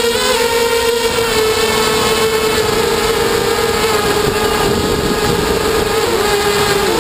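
QAV250 racing quadcopter's brushless motors and propellers whining at a steady high pitch, heard from a camera mounted on the drone, with the pitch wobbling up and down near the end. A rush of wind and airflow runs underneath.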